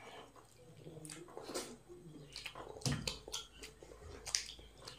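Close eating sounds: several people chewing and smacking their lips, with many short wet clicks, and fingers squishing rice and curry.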